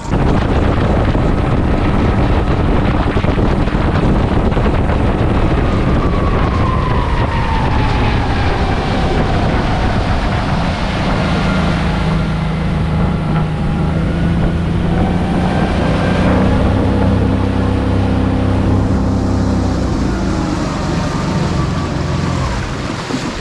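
Outboard motor driving a small fishing boat along, with wind buffeting the microphone. The engine note slides down about six to ten seconds in and changes again around sixteen seconds.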